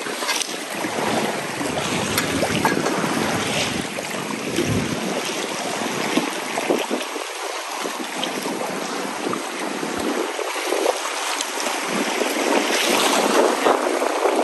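Wind on the microphone over lapping sea water, a steady rushing noise with scattered small knocks.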